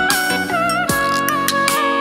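Instrumental bolero backing music: a held lead melody line with vibrato over a steady drum beat, with no singing.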